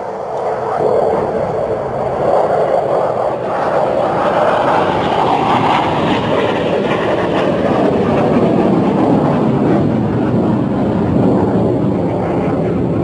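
A loud airplane flying low overhead, its engine noise building over the first couple of seconds and then holding steady and loud.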